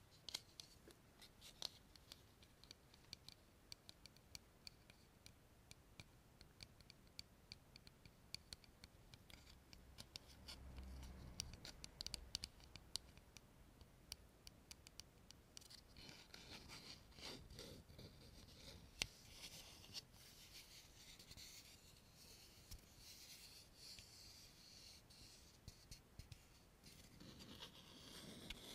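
Faint, quick dry ticks and clicks from fingers working a small hard object, giving way about halfway to a continuous soft scratching and rubbing.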